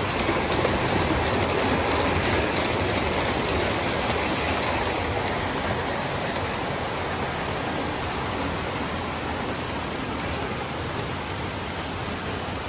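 O gauge model trains running on a large layout: a steady rolling rumble and whir of metal wheels and motors on the track. It is a little louder for the first few seconds as a train passes close, then eases.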